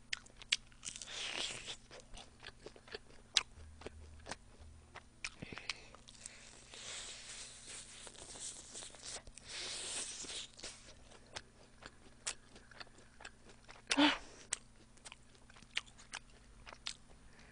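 Close-miked eating of crispy fried chicken wings: crunchy bites into the fried coating and wet chewing, with many small mouth clicks between them and the loudest bite about 14 seconds in.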